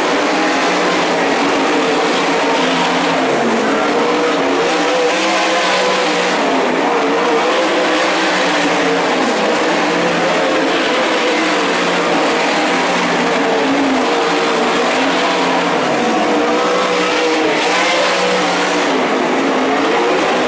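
Winged 410 sprint cars racing on a dirt oval, their engines running hard. The engine pitch rises and falls as the cars go round the track.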